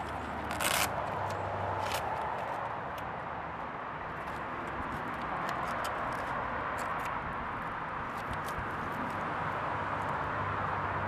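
Hook-and-loop wheel strap on a SportRack 2EZ hitch bike rack being pulled open and fastened around a mountain bike tyre. There is a short rip just under a second in and a weaker one at about two seconds, then scattered small crackles and clicks as the strap is pressed down. A steady background hiss runs underneath.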